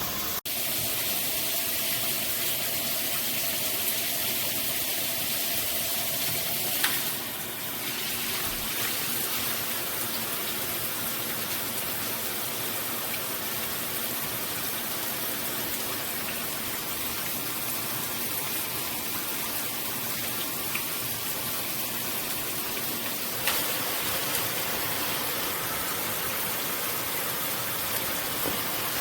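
Shower head spraying water, a steady rush, broken by a brief click about seven seconds in and another about two-thirds through.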